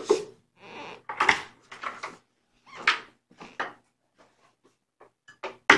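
A run of short knocks, clatters and rustles from things being handled and moved, about every half second, with a sharp click near the end.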